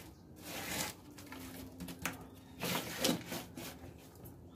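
Loose crushed-stone and volcanic-rock potting substrate crunching and grating as hands press and settle it around an orchid in its pot, in two short bursts.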